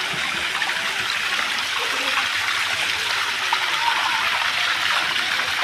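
Sai Yok Noi waterfall: falling water rushing in a steady, unbroken wash.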